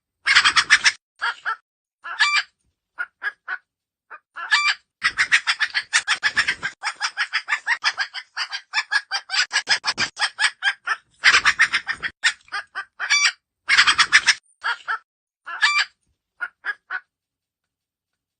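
A rooster squawking loudly in rapid runs of harsh, repeated cries, with shorter pauses between the runs: the distress squawks of a rooster caught by an eagle.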